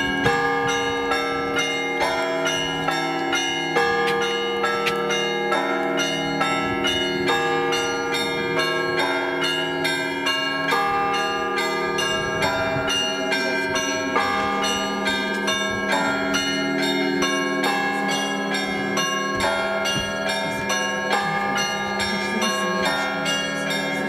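Church bells ringing in a continuous peal. Many bells of different pitches are struck over and over in a quick, even rhythm.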